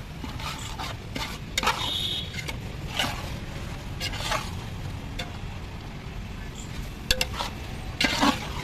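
A long metal fork stirring chicken pieces through thick biryani masala in a large metal pot, with irregular scrapes and clinks against the pot. The loudest come about a second and a half in, at about three seconds, and near the end.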